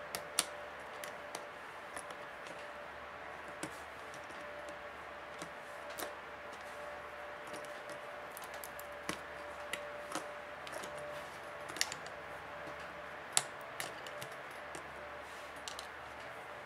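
Small clicks and taps at irregular intervals from a screwdriver and fingers working on the plastic frame and speaker module of a Google Nexus 7 tablet as the speaker is taken out, over a steady faint hum.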